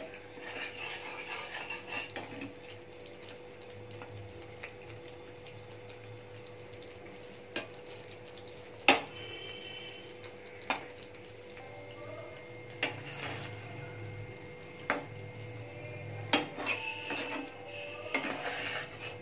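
Metal spatula stirring a thick simmering egg curry gravy in a pan, with soft scraping and several sharp clicks of the spatula against the pan, over a gentle sizzle of the gravy. A faint steady hum runs underneath.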